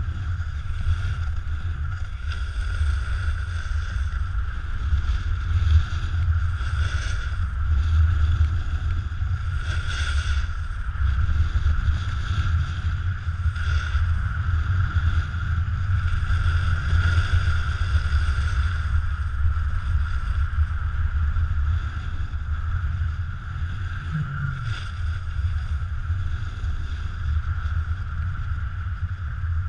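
Wind rumbling on the microphone of a camera moving fast downhill, over the steady hiss of a snowboard sliding on packed snow, with a few short scrapes of the board's edge on turns.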